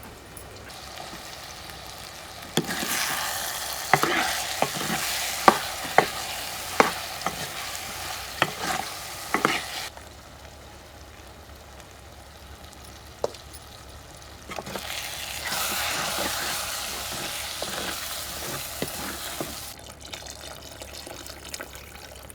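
Food sizzling as it fries in a pan, being stirred, with sharp clinks of a utensil against the pan during the first spell. The sizzling comes in two spells, the second starting about halfway through.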